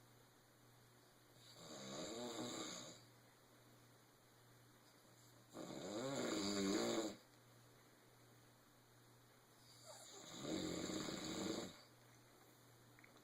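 Snoring: three drawn-out snores about four seconds apart, each lasting one to two seconds, with near quiet between them; the second is the loudest and starts abruptly.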